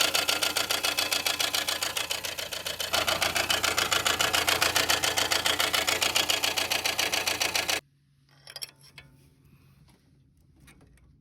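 Lada Kalina engine running with a rapid, even knocking that the owner puts down to a failing water pump. The knocking grows louder about three seconds in and cuts off suddenly about eight seconds in, leaving only a few faint clicks.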